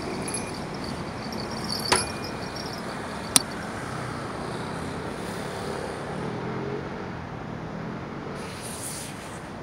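Steady city street and traffic noise, with two sharp clicks about a second and a half apart near the start.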